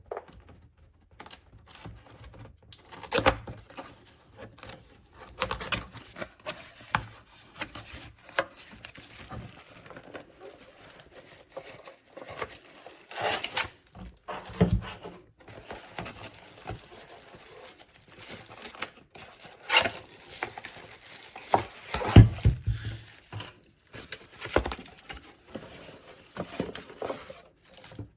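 Handling noise: irregular clicks, taps and rustles from objects being moved about by hand, with a cluster of heavier thumps about 22 seconds in.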